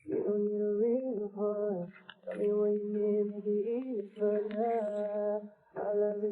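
Background music: a slow song with a held, sung melody.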